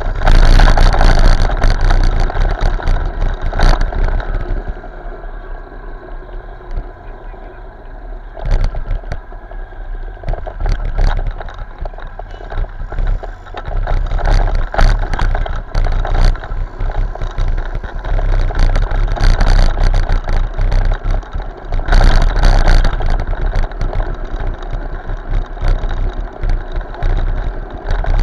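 Motorcycle ride picked up by an action camera's microphone: the engine running, with wind buffeting the mic. It eases off from about four to eight seconds in, where the engine's steady tone comes through, then the wind noise picks up again.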